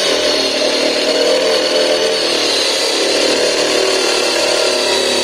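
Electric jigsaw with a plastic-cutting blade sawing through the welded-on top of a plastic barrel, its motor running steadily with a constant whine.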